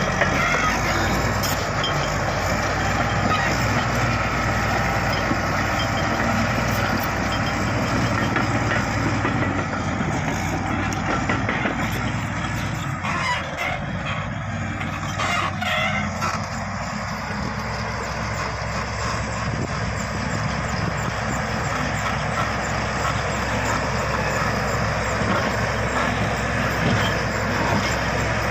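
Diesel engine of heavy earthmoving equipment running steadily under work, with a few brief knocks around the middle.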